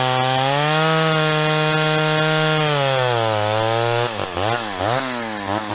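Homelite Super XL Automatic two-stroke chainsaw running at high revs as it cuts through a log, its high-speed carburetor needle freshly adjusted. The pitch climbs about half a second in, holds, and sags around three seconds in. Near the end the throttle is blipped up and down several times in quick succession.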